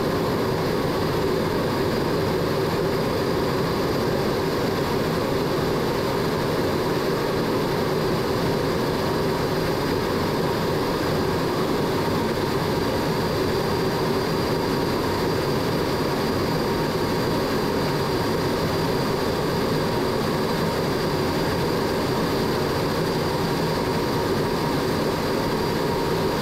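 MiG-17 jet fighter's turbojet engine running steadily in flight: an unchanging rushing noise with several constant whining tones through it.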